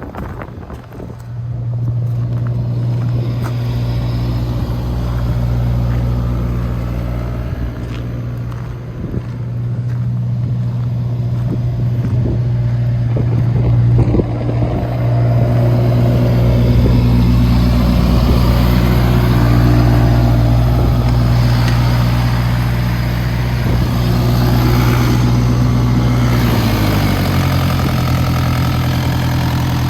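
Kubota KX57-4 mini excavator's diesel engine running at a steady speed under load, its working noise rising and falling through the middle stretch. Near the end the engine speed drops slightly.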